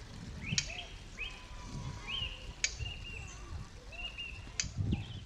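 Ambient background soundscape: short rising chirps, three sharp clicks about two seconds apart, and a low rumble underneath.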